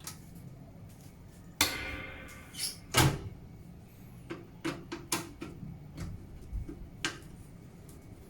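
Clicks and knocks of parts being handled in a metal PC case. A sharp knock about one and a half seconds in rings briefly and metallically, a louder knock follows about a second later, and then a string of lighter clicks.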